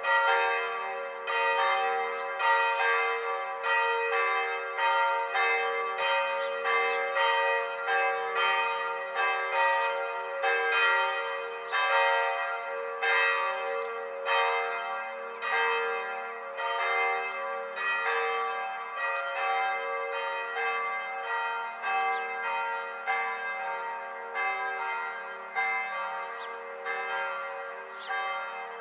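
Church bells ringing: several bells struck one after another at about two strokes a second, each note ringing on under the next.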